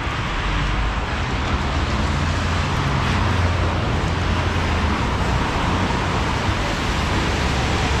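Road traffic on a rain-wet street: a steady hiss of tyres on wet pavement, with a vehicle's low engine rumble swelling about two seconds in and easing off after about six.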